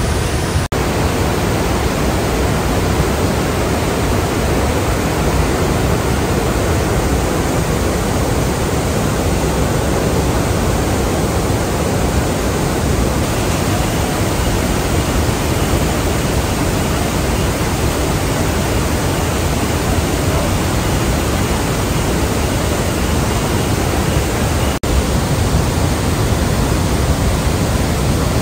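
Iguazú Falls: the steady, dense rush of a huge volume of water pouring over the falls, heaviest in the low end. It drops out for an instant about a second in and again near the end.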